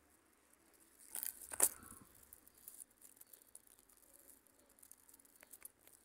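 A brief dry rustling and crackling about a second and a half in, followed by a few faint scattered clicks, against a quiet background.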